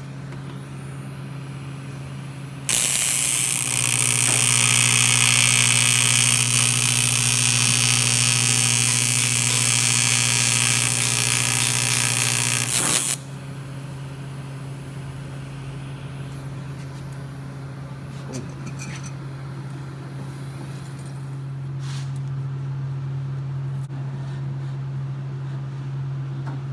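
TIG welding arc on a metal intake tube: a loud, even hiss that switches on about three seconds in, runs for about ten seconds and cuts off suddenly. A steady low hum runs under it before and after.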